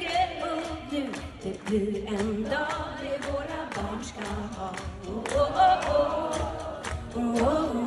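Female pop singer singing live into a microphone with band accompaniment, holding wavering notes with vibrato, recorded from among the concert crowd.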